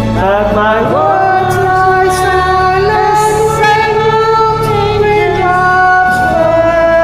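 A woman singing long, drawn-out notes over a karaoke backing track, her voice sliding up in pitch in the first second before holding steady notes.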